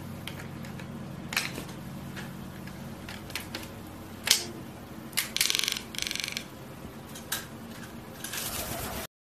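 A toucan's bill tapping and knocking against a metal equipment case: scattered sharp clicks, one louder knock about four seconds in, then two short rapid rattles a second or so later.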